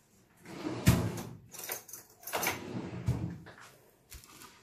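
Kitchen handling noises at the counter: a sharp knock about a second in, then a couple of seconds of rubbing and shuffling, and another dull knock near the three-second mark.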